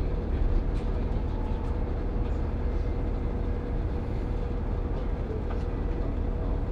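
A train running: a steady low rumble with a steady mid-pitched hum and a few faint light clicks.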